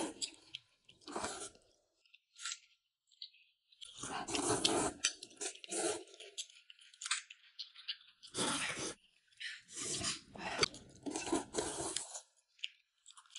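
Hot and sour noodles (suanlafen) being slurped and chewed close to the microphone, in a string of short noisy bursts with pauses between them.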